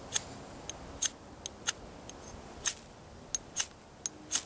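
Knife blade struck down a ferrocerium rod, about ten quick, sharp scrapes at uneven intervals, throwing sparks toward char cloth in a tinder nest.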